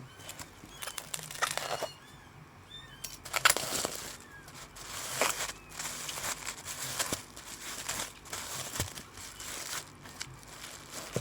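Plastic packaging crinkling and rustling in irregular bursts as it is handled during the unwrapping of a replacement phone LCD screen, the loudest burst about three and a half seconds in.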